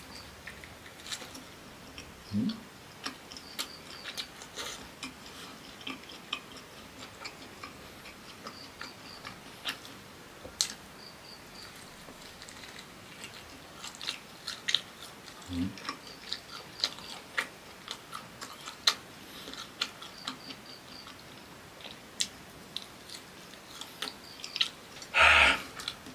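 Close-up mouth sounds of someone biting and chewing fried cassava with chili sambal: irregular wet clicks and smacks, with a louder burst near the end.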